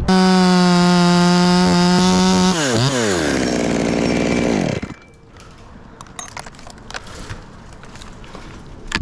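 Two-stroke chainsaw running at full throttle at a steady high pitch, then the throttle is let off about two and a half seconds in and the engine speed falls away over about two seconds. After that only faint clicks and rustling remain.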